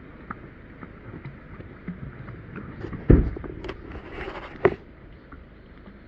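Swimming in a creek: a steady hiss of water with light clicks, a dull thump about three seconds in, then a brief splashy rush ending in a sharp knock.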